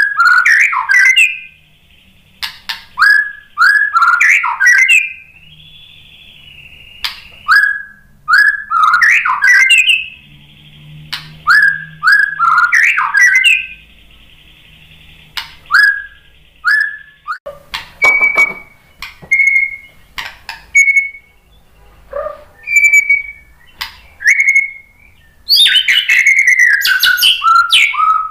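White-rumped shama singing: loud clusters of whistled notes in short phrases with pauses between them, then single clear whistles. Near the end comes a longer, richer run of varied notes.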